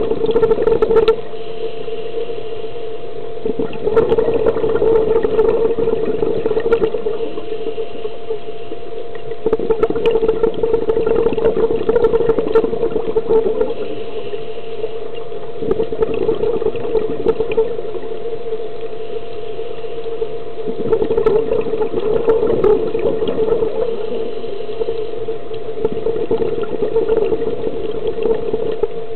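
Scuba regulator breathing heard underwater through the camera housing: long rushes of exhaled bubbles come about every five to six seconds over a steady hum.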